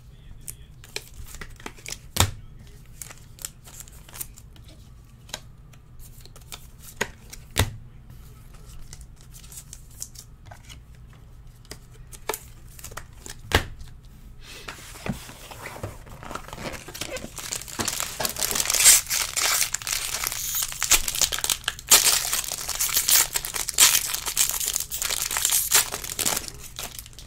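A few sharp, isolated taps as cards are handled, then, from about halfway, the foil wrapper of a baseball card pack crinkling and tearing as it is ripped open, growing louder toward the end.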